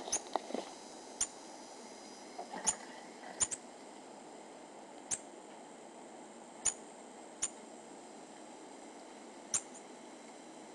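Pygmy marmosets giving short, very high-pitched chirps, about ten of them spaced irregularly over several seconds, with a brief brush of movement close by at the start.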